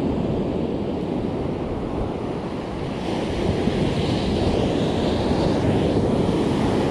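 Ocean surf breaking and washing up a sandy beach, with wind buffeting the microphone. The hiss of the surf swells about halfway through.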